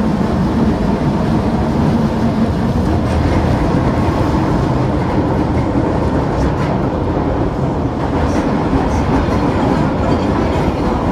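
Osaka Metro Midosuji Line subway train running through a tunnel, heard from inside the front car: a steady, loud rumble of wheels on rail, with a few faint clicks in the second half.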